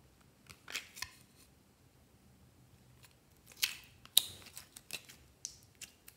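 Plastic compact case being handled and snapped open: a few sharp plastic clicks, the loudest two about three and a half and four seconds in, followed by lighter ticks.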